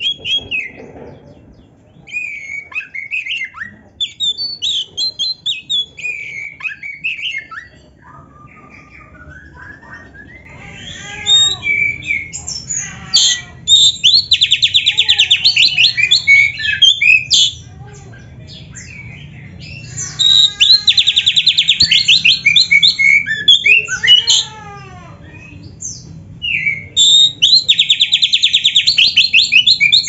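Oriental magpie-robin singing. It begins with varied short whistled and chirped phrases, then from about halfway sings three long, very fast, even trills lasting several seconds each: the canary-style song that the bird has picked up.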